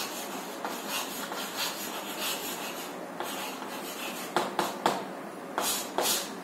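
Chalk writing on a chalkboard: a run of short, scratchy strokes, with a few louder, sharper strokes in the last couple of seconds.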